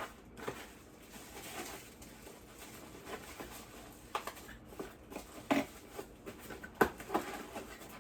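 Scattered knocks, clicks and rustles of small items and packaging being handled and gathered back into a box, the sharpest knock about 7 seconds in.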